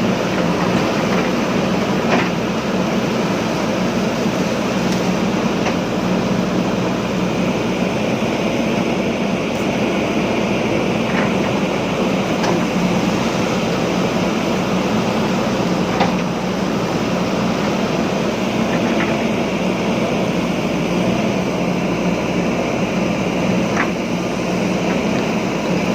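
JCB backhoe loader's diesel engine running steadily under load, with a few sharp knocks scattered through.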